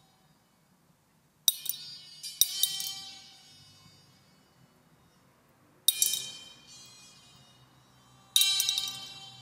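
Grains dropped one at a time into a glass vessel, each drop setting off a bright, glassy, bell-like electronic tone that rings and fades over a second or two. Four such strikes sound over a faint low drone.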